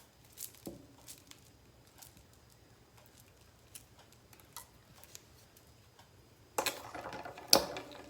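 Parts of an electric grill being handled and fitted together: scattered faint clicks, then near the end a louder stretch of rubbing and clatter with one sharp knock, as a piece is pushed into place.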